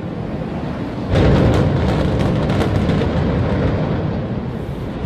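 Demolition charges firing in the tower's implosion: about a second in a sudden loud boom sets off a rapid string of sharp cracks over a couple of seconds, under a low rumble that carries on to the end.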